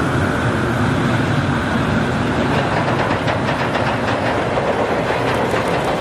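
Steam-hauled passenger train crossing a railway bridge: a steady, loud rumble of the locomotive and coaches, with faint wheel clicks over the rail joints from about halfway in.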